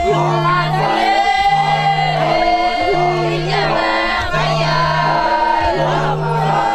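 Music with a group of voices singing over a low note that sounds for most of a second and repeats about every second and a half.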